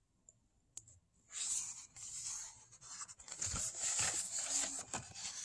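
A page of a paper picture book being turned: a soft tick, then paper rustling and sliding, starting a little over a second in.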